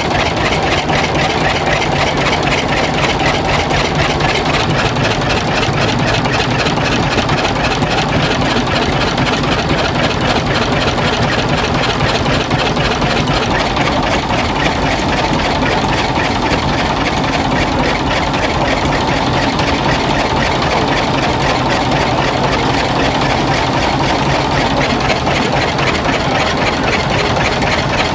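Vintage stationary diesel engine running steadily with a rapid, even beat, its exposed valve gear working in the open.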